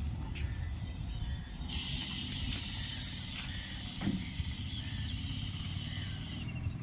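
Passenger train standing at a platform: a steady low rumble, joined about two seconds in by a steady high hiss that stops just before the end, with a brief knock about four seconds in.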